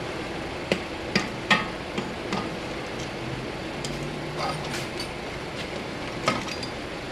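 Hand tools, a screwdriver among them, clinking and tapping on metal suspension parts while the steering knuckle is worked loose. The clicks come over a steady background hiss: a cluster in the first two and a half seconds, the loudest about one and a half seconds in, and another one about six seconds in.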